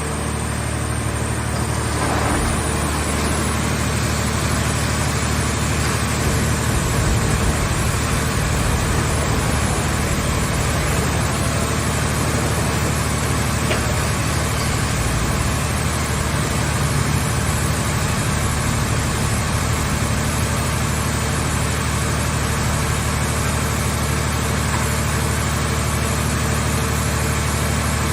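Engine and hydraulic power unit of a scrap-car baler running steadily, a continuous low drone with no pauses or changes in pitch.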